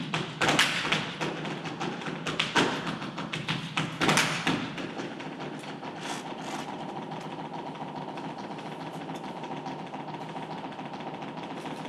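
Flamenco footwork: shoe heels and toes striking the wooden stage floor, several loud sharp stamps in the first few seconds, then a quieter run of fast taps.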